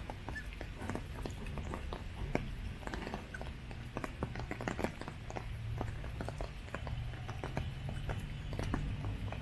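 Footsteps on wet paving mixed with irregular sharp taps of raindrops, over a steady low rumble. A faint steady high tone joins near the end.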